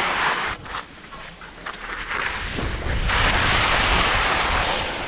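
Skis scraping and sliding over hard, patchy snow on a steep mogul slope, the hiss coming and going in surges with the turns, with wind buffeting the microphone through the middle.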